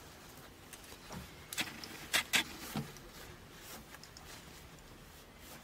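A cloth rag wiping the steel blades of a pair of bonsai scissors: a few short, faint rubbing and handling sounds in the first three seconds.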